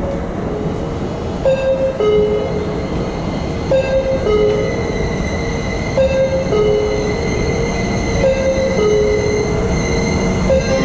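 JR 651-series electric train approaching along the track into an underground station platform, a steady rumble with a faint high whine. Over it a two-note chime, high then low, sounds about every two seconds.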